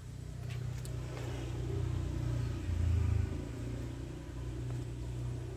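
A deep, low rumble that builds to its loudest about three seconds in and then eases off, with a couple of faint clicks about half a second in.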